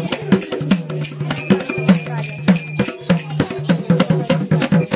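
Instrumental dance music: a drum beating a quick, steady rhythm with jingling, rattling percussion over a steady low tone.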